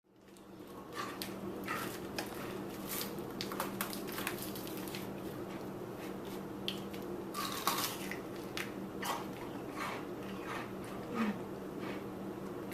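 A steady low hum with many small scattered clicks and rustles, a few of them sharper, about three quarters of the way through.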